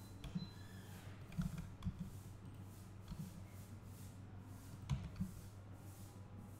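Scattered clicks of a computer mouse and keyboard, about six in all, over a low steady hum.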